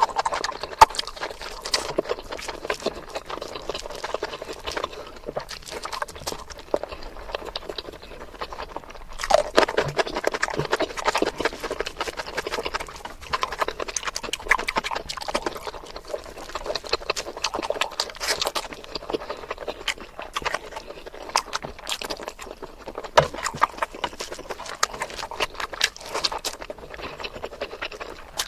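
Close-miked wet chewing and lip-smacking of someone eating chicken curry: a dense, continuous run of small mouth clicks and smacks.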